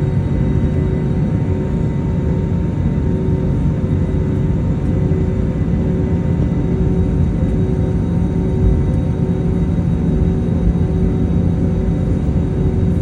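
Airbus A321neo jet engines heard from inside the passenger cabin: a steady loud rumble with several steady whine tones above it, holding an even level.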